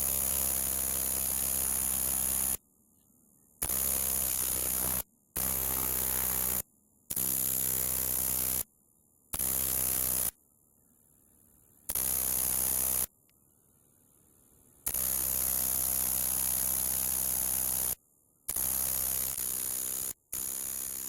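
A Xestophrys javanicus, a coneheaded katydid, singing: a run of long continuous high-pitched buzzes, each lasting one to three seconds, broken by short pauses.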